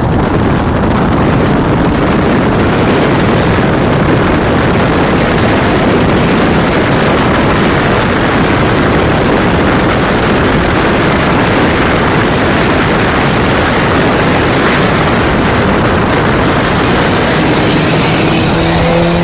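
Steady, loud rushing noise of a car on the move, with no clear engine note standing out; the hiss grows brighter near the end.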